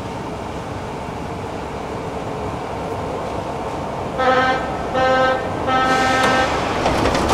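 Metro train standing at the platform with its steady ventilation hum, then three evenly spaced door-closing warning beeps about four seconds in, and the doors start sliding shut right at the end.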